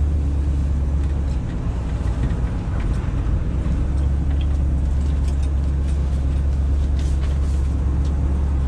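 Classic car's engine running cold as it is driven slowly and gently, heard from inside the cabin: a steady low rumble that eases off for a couple of seconds soon after the start, then picks up again.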